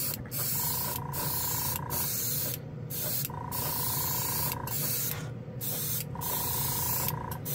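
Airbrush hissing as it sprays primer, with the air cutting off briefly several times as the trigger is let go and pressed again. A compressor hums steadily underneath.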